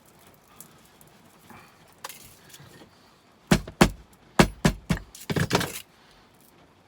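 Grey Ethernet cable being worked by hand, its plastic jacket tugged to peel it open along a slit. The clicks and rattles come as a loud, fast flurry about halfway through, after a quiet start.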